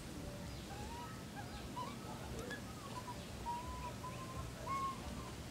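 Birds chirping: many short, thin whistled notes, a few each second, some rising or dipping, over a low rumble.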